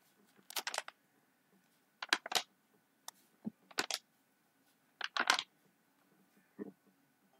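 Short bursts of clicking and rattling, about six clusters spaced a second or so apart.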